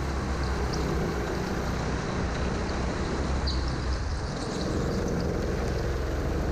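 Indoor go-kart's engine running at racing speed, heard from onboard the kart, a steady drone with no letting up.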